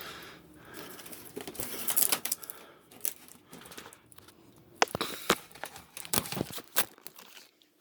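Action-figure packaging being handled: cardboard and plastic boxes rustling and crinkling, with several sharp taps and clicks as the boxes are knocked and set down.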